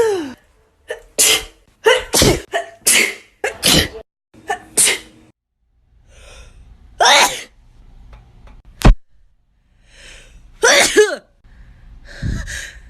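A string of human sneezes from different people, one after another. About six come in quick succession in the first five seconds, then a few more are spaced out, with one sharp click about nine seconds in.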